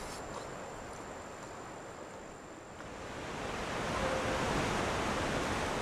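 Steady rushing outdoor noise with no clear source, dipping briefly about two and a half seconds in, then coming back louder.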